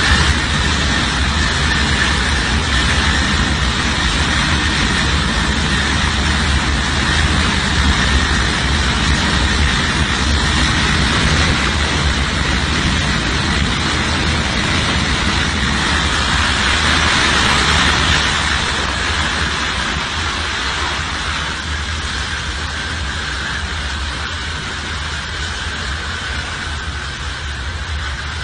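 Boeing C-17's four turbofan engines running at high power in reverse thrust to back the plane up: a steady jet noise with a high whine over a low rumble, growing a little quieter about two-thirds of the way in.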